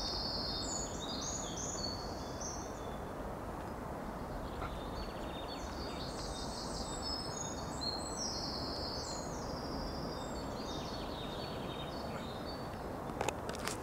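Shallow gravel-bed stream flowing with a steady rush, while a songbird sings high phrases in bouts over it. A few sharp clicks near the end.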